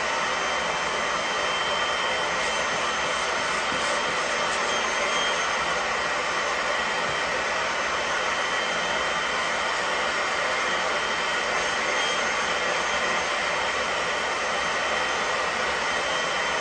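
Steady rushing noise of an electric household appliance running without a break, mostly air hiss with a faint high whine.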